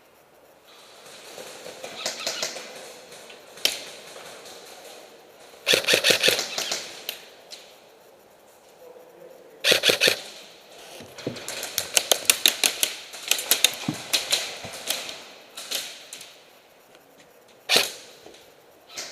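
Airsoft guns firing: several quick strings of sharp shots, a few a second, with single shots now and then, over shuffling movement.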